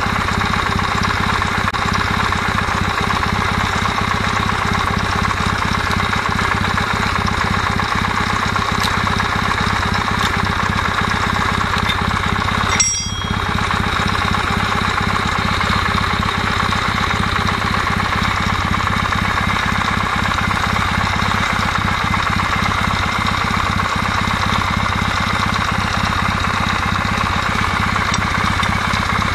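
Kawasaki W650 air-cooled parallel-twin engine idling at working temperature with a steady rapid knocking from the bevel-gear camshaft drive, which the owner puts down to the camshaft gear. With the drive's adjusting sleeve turned, a buzzing like an electric motor runs under the engine note. A brief click and dropout come about halfway through.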